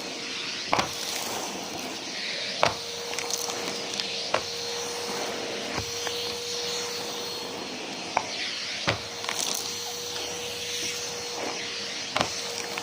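Numatic James canister vacuum cleaner running, a steady motor whine over airflow hiss, broken by sharp knocks and clicks every second or two.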